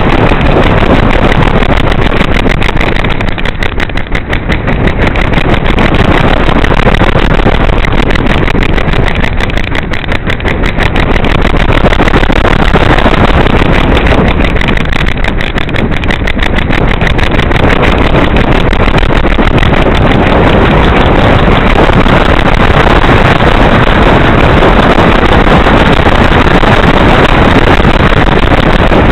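Wind rushing and buffeting over the microphone of a small camera strapped to a flying pigeon, a loud, steady rush that eases briefly about 4, 10 and 16 seconds in.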